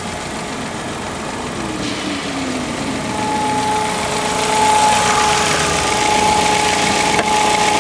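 Ford Focus 2.0-litre Zetec four-cylinder engine idling under the open hood, with a steady high whine running through it. A light click near the end.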